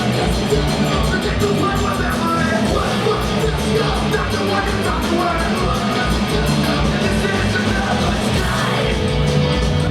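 Punk rock band playing live and loud: distorted electric guitars over a quick, steady drum beat.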